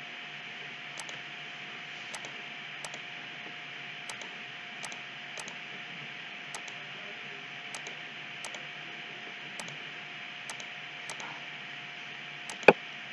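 About a dozen soft computer mouse clicks, spaced irregularly, over a steady recording hiss with a faint constant hum. One louder click comes near the end.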